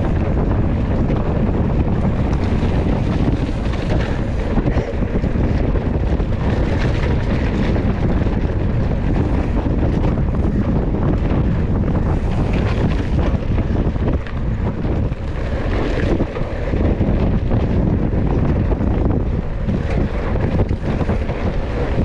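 Wind rushing over the microphone of a camera worn by a mountain biker riding a dirt road, with the bike's tyres rumbling on the dirt underneath.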